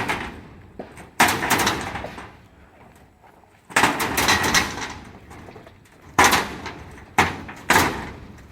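Steel reinforcing bars clanking as they are handled: several sharp metallic knocks, each ringing briefly, some close together.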